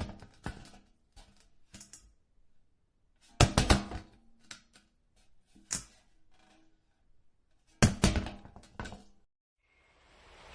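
A falling-object sound effect: a heavy clunk as something drops, followed by a quick string of smaller rattling knocks as it settles. It plays three times, about four seconds apart.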